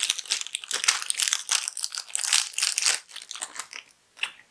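Small plastic wrapper crinkling and crackling as it is pulled open and peeled off a squishy toy by hand. The crinkling thins out about three seconds in, and it is quiet briefly near the end.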